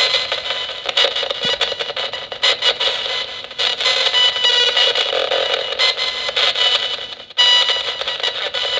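Nanocom Coffin Edition spirit box radio sweeping through stations: continuous static chopped into short bursts as the random sweep jumps, with brief cut-outs about three and a half seconds in and again just past seven seconds.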